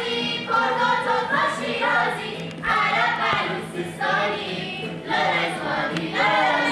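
Group of children singing together in a chorus, in short phrases with brief breaks between them.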